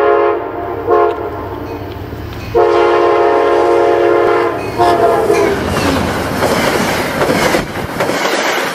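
Pan Am Railways EMD SD40-2 locomotive sounding its Leslie RS3L air horn for a grade crossing. The loudest is a long blast about two and a half seconds in, with a short one after it. The locomotive and freight cars then pass close by with a heavy rumble and wheel clatter, which cuts off abruptly near the end.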